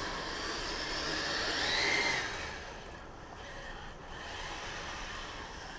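Kyosho Blizzard RC snow vehicle's brushed electric motor whining as its track drives through sticky, soft snow; the whine rises in pitch and is loudest about two seconds in, then drops to a fainter steady level.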